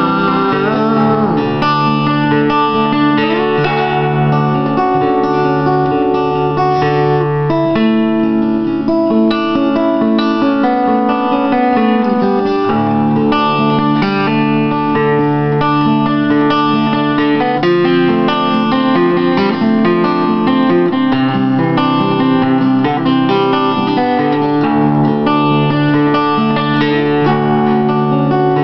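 Steel-string acoustic guitar played fingerstyle: a continuous run of picked notes ringing over held bass notes.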